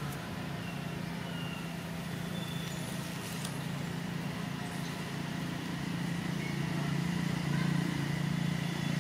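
A low, steady engine drone, like a motor vehicle running nearby, growing louder in the last few seconds, with a few faint, short, high chirps over it.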